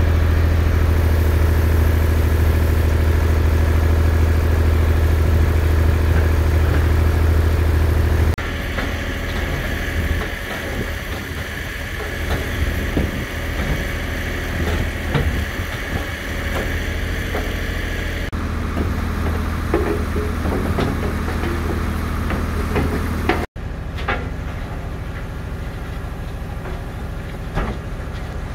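Micro piling drill rig's engine running steadily while its spiral auger drills pile holes, with scattered knocks and rattles. The sound changes abruptly several times.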